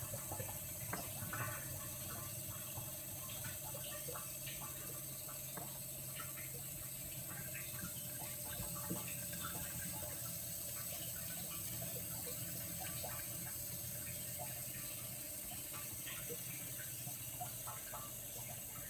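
Aquatec 8800 diaphragm booster pump running steadily, with a low hum and the hiss of water pushing through a reverse-osmosis/deionization filter unit. A few faint clicks come from a small screwdriver turning the pump's pressure adjustment down.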